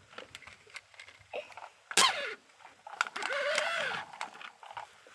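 Scattered light clicks and knocks of small plastic toy cars on a wooden plank, with a sharp cry about two seconds in whose pitch falls quickly, and a longer pitched call that rises and falls about a second later.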